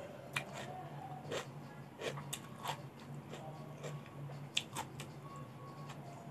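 Close-up mouth sounds of chewing crisp raw vegetables: irregular crunches and wet clicks, with two sharper crunches standing out, one near the start and one past the middle.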